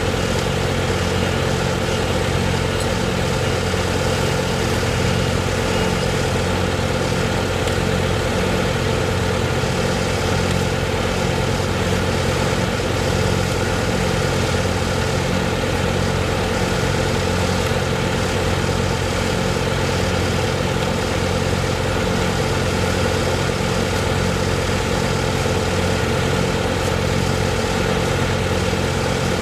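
A large engine idling steadily, with a constant low hum and no change in speed.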